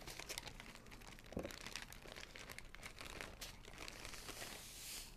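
Faint crinkling of plastic as a zip-top bag and a butter stick's wrapper are handled and peeled.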